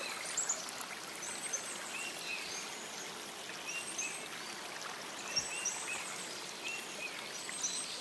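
Forest stream running over rocks, a steady rush of water, with a bird calling over and over in short high notes.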